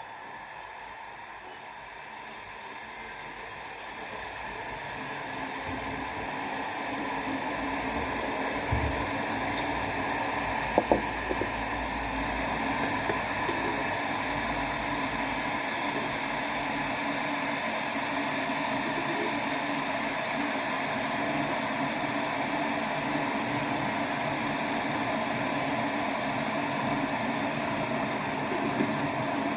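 2200 W glass electric kettle heating water: a steady hiss and rumble that grows louder over the first several seconds and then holds level, with a couple of sharp clicks about eleven seconds in.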